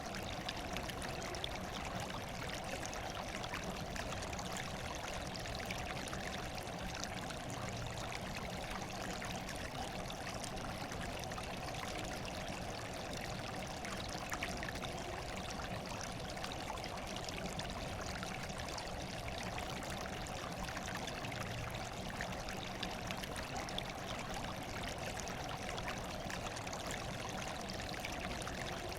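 Water running steadily, an even, unbroken rush.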